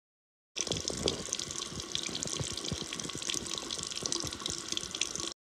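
Water running from a household tap into a sink, a steady splashing rush that starts suddenly about half a second in and cuts off just before the end.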